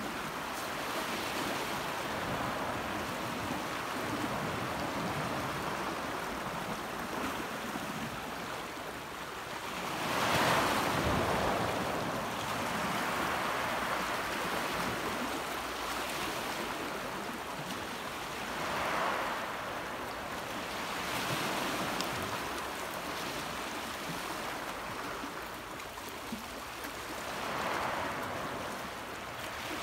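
Sea waves washing over a rocky shore, surging every few seconds with the loudest wash about a third of the way in, over a light wind hiss.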